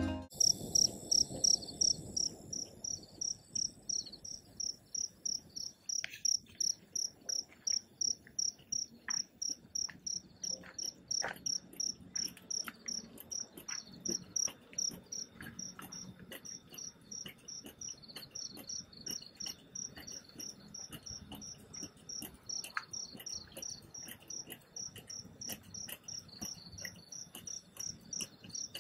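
A cricket chirping steadily, a high chirp repeated about three times a second, louder in the first half, with faint scattered ticks.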